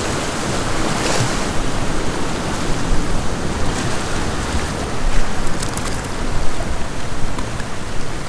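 Sea washing and breaking against rocks, with wind buffeting the microphone.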